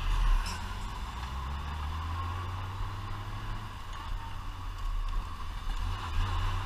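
Touring motorcycle engine running at low road speed under steady wind rush, heard from a helmet-top camera. The engine note picks up slightly near the end.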